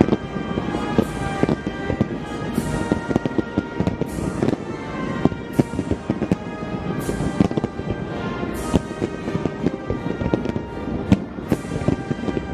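Fireworks going off in quick succession: many sharp bangs, several followed by a crackling hiss. Music plays throughout.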